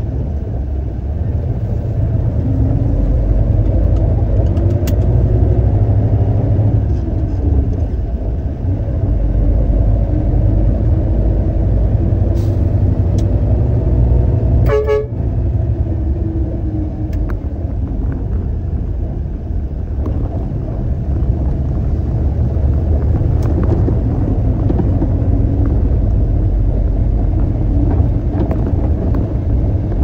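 Concrete mixer truck's diesel engine running on the road, its note rising and falling as it works through the gears, with a short horn toot about halfway through.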